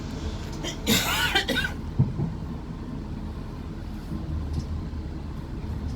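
Steady low rumble of a Class 450 electric multiple unit running, heard from inside the carriage. About a second in there is a short cough-like vocal sound, and a sharp knock follows about a second later.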